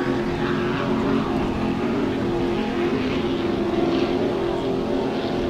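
Offshore racing catamaran's engines running at speed as it passes, a steady drone.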